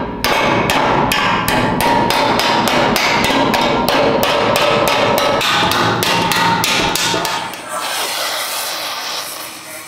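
Steel body panel of a 1962 Vespa being hammered over a dolly in quick, even blows, about four a second, to knock out dents. About three-quarters of the way through, the hammering stops and a gas torch flame hisses steadily.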